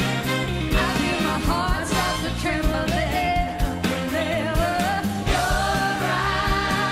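Two women singing a pop-rock duet into microphones over a live band with a steady drum beat.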